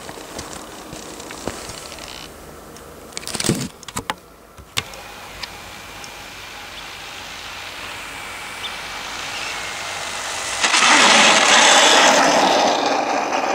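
Electric motor and propeller of a small RC Cessna 182 model plane: a faint steady whine, then a loud rushing propeller noise starting about ten and a half seconds in. A few sharp knocks come about four seconds in.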